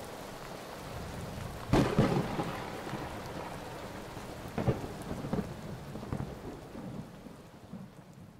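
Steady heavy rain with thunder: a loud, sharp thunderclap about two seconds in, a second crack near the middle, and smaller rumbles that fade as the rain eases off.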